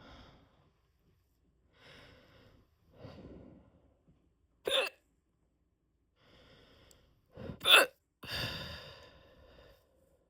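A person hiccupping: two sharp hiccups about five and eight seconds in, the second the louder and run together with a smaller one just before it, with quiet breathing between them and a longer breath out after.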